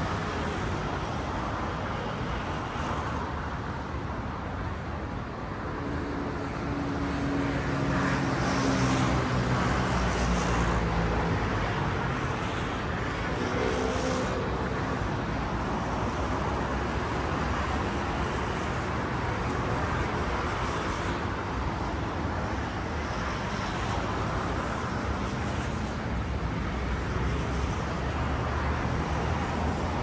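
Steady outdoor city ambience of distant road traffic. Between about six and twelve seconds in, a low engine drone swells and fades as something passes.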